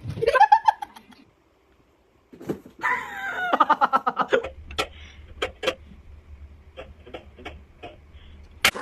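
Bird calls: a short gliding call at the start, then after a pause a longer pitched call, followed by a run of sharp taps.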